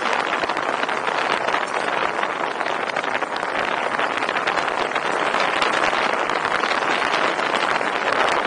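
Steady rushing wind and tyre noise of a Chevy Malibu lowrider cruising, picked up by a camera held outside the moving car.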